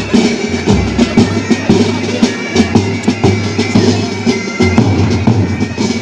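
Marching music: bagpipes playing over a regular drum beat.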